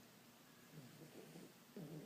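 Pug snoring faintly: a low rasping breath around the middle, then a louder snore starting near the end.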